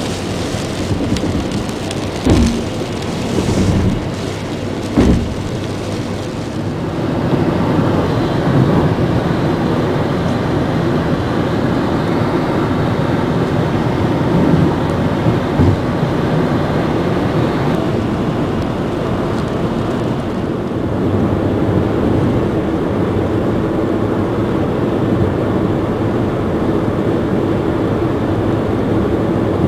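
Heavy rain pouring in a thunderstorm, with thunder rumbling low under it and a couple of sharp knocks in the first few seconds.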